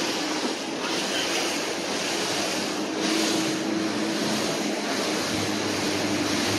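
Steady rush of water and wind from a small boat under way, with the boat's engine humming steadily underneath.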